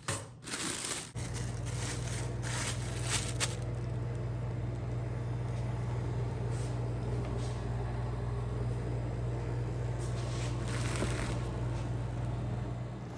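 Packaging being handled and unwrapped, crinkling and crackling, with sharper crackles in the first few seconds and again near the end. A steady low hum comes in suddenly about a second in and continues underneath.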